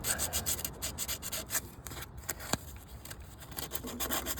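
Quick back-and-forth scrubbing strokes on a cable connector for a ride-on mower's starter solenoid, cleaning off corrosion that could cause a no-start fault. The strokes ease off in the middle and pick up again near the end.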